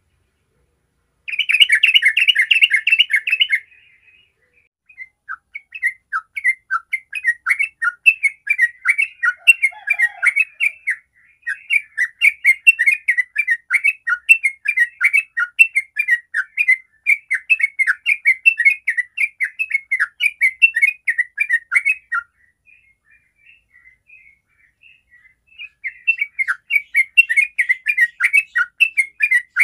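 Yellow-vented bulbul (trucukan) singing a long, rapid, bubbly chattering run, the 'ropel' song prized by bulbul keepers. A short loud burst comes about a second in, then a long unbroken run, a brief pause, and the song resumes near the end.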